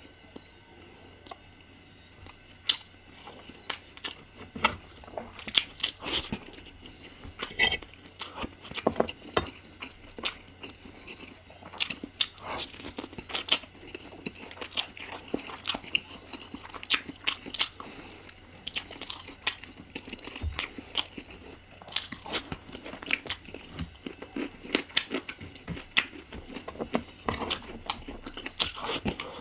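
Close-miked chewing and biting of spicy chicken curry: a dense, irregular run of sharp wet mouth clicks and smacks.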